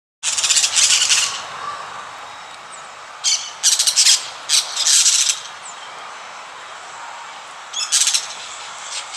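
Parrots screeching in short high-pitched bouts: one near the start, a run of calls in the middle, and another near the end, over a steady background hiss.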